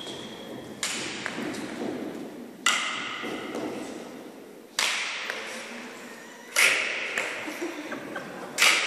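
Badminton racket strings striking shuttlecocks: five sharp hits about two seconds apart, each ringing on in the echo of a sports hall.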